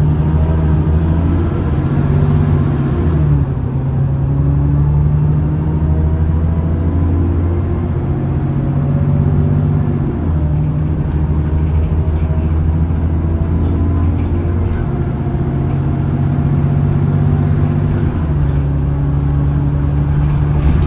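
Alexander Dennis Enviro400 E40D diesel bus running under way, its engine note holding steady then stepping to a new pitch every few seconds as it changes gear, with a faint high whine over it: the 'Hoover' sound.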